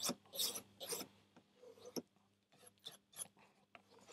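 Ontario Rat 1 folding knife's steel blade stroked along a leather strop loaded with polishing paste: several short, quiet swipes, irregularly spaced, as the edge is finished after sharpening.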